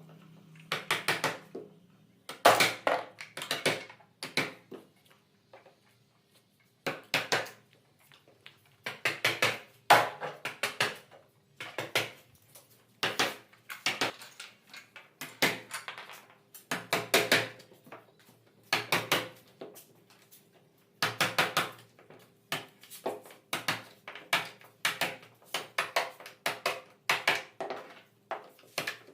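Hammer blows on wood, coming in quick runs of several sharp knocks with short pauses between them.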